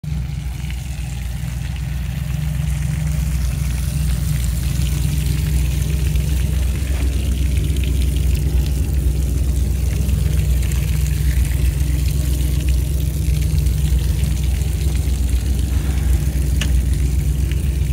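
Water spraying and splattering from a spray bar's two nozzles, fed by gravity alone before the pump is running, over a steady low hum. There is a light click near the end.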